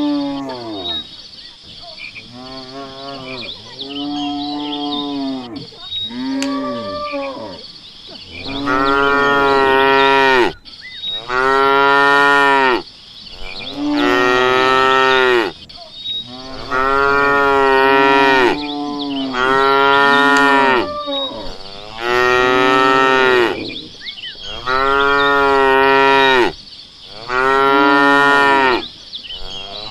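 Cattle mooing over and over. A few softer moos come first, then loud moos about every two seconds, each one rising and then falling in pitch.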